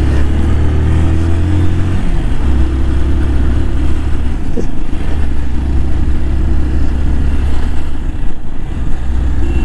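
Motorcycle engine running as the bike rides along, a steady low hum that eases off briefly a few times as the throttle changes.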